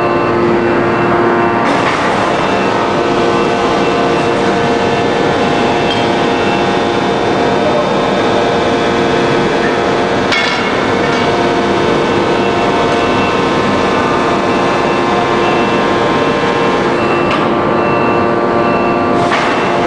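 A 1250-ton hydraulic open-die forging press is running: a loud, steady machinery drone with several steady whining tones that shift at a few points. Sharp knocks come about 2, 10 and 19 seconds in.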